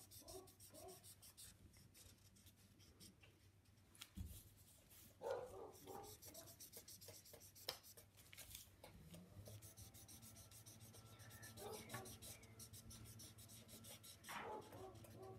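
Felt-tip marker scratching on paper in quick, repeated colouring strokes, faint throughout. A soft thump comes about four seconds in, and a few brief, faint voice-like sounds rise above the scratching.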